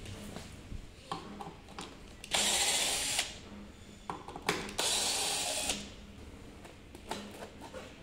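Cordless drill-driver backing out two screws, running twice for about a second each time, with light clicks of handling between.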